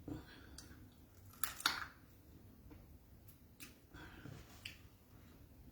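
Quiet mouth sounds of eating: a few short clicks and smacks, two of them louder about one and a half seconds in.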